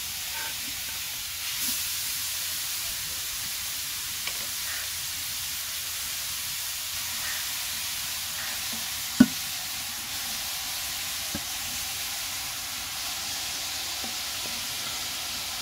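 Grated carrots poured from an earthenware bowl into a large aluminium cooking pot, a steady soft rustling hiss, with one sharp knock about nine seconds in.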